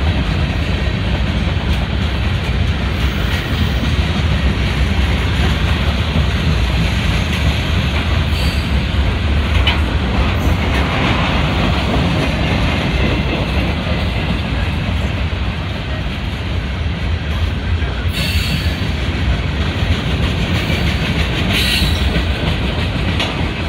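Freight cars of a long Norfolk Southern mixed freight train rolling past close by: a steady, loud rumble of steel wheels on the rails, with a few brief higher-pitched squeals.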